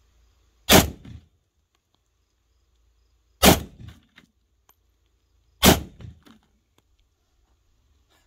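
Three rifle shots from an AK-pattern rifle in 7.62×39mm, spaced about two and a half seconds apart, each with a short echo trailing after it.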